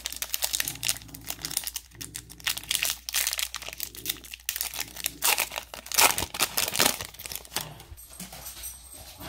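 Trading card pack wrapper being crinkled and torn open by hand, a dense, irregular crackle.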